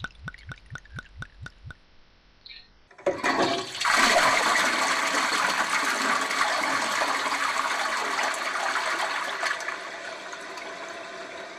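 A quick run of faint drips, then a toilet flushing: water rushes in loudly about three seconds in, keeps running and slowly fades as it drains away.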